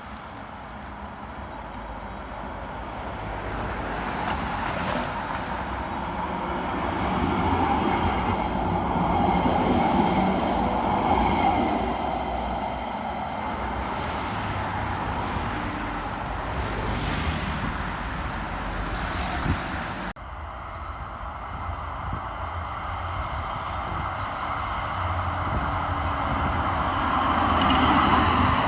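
Street traffic: motor vehicles running past, the noise swelling as they pass by. The sound breaks off abruptly about two-thirds of the way through and picks up again with more traffic.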